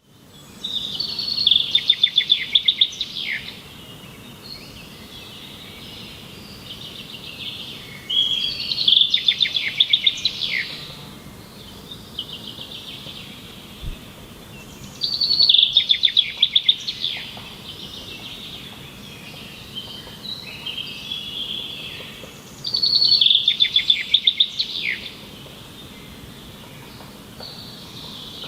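Songbird singing a fast trilled phrase that ends in a downward sweep, four times at intervals of about seven seconds, over quieter background chirping from other birds.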